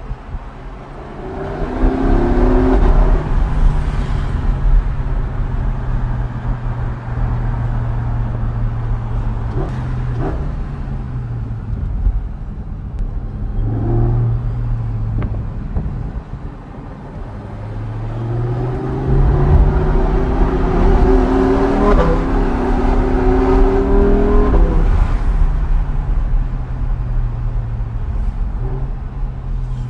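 Lamborghini Huracán STO's 5.2-litre V10 with an aftermarket Innotech exhaust, heard from inside the cabin. It pulls hard twice, briefly about two seconds in and for several seconds in the second half, its pitch climbing, with steadier cruising between.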